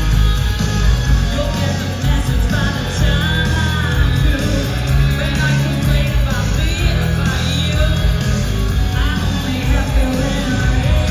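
Live rock band: a female lead vocal over distorted electric guitars, bass and drums, heard from the audience through the venue's loud PA.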